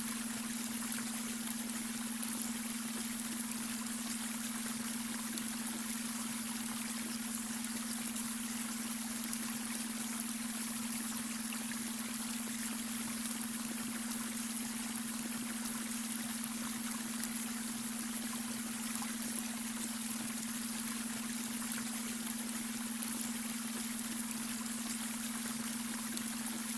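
Babbling brook with water running and trickling, steady throughout, under a steady low beta-wave brainwave tone.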